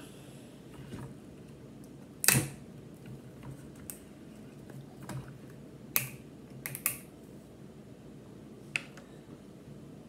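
Plastic screw cap of a sports-drink bottle being twisted open by hand: a handful of sharp plastic clicks and cracks, the loudest about two seconds in, with a few more spread over the following seconds.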